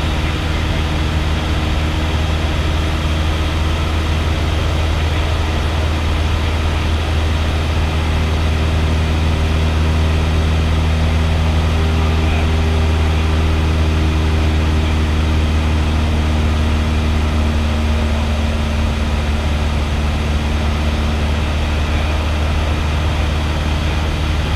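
Single-engine light airplane's piston engine and propeller droning steadily in cruise, heard from inside the cockpit.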